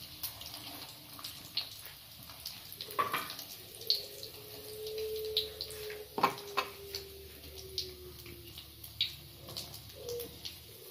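Wonton-wrapper mini martabak frying in hot oil in a wok: the oil crackles with many small sharp pops, with a couple of louder knocks as they are turned. A faint steady tone runs under it from about three seconds in.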